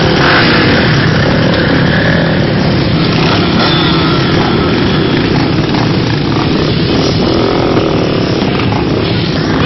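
Off-road motorcycle and quad engines running loud and continuous, the revs rising and falling.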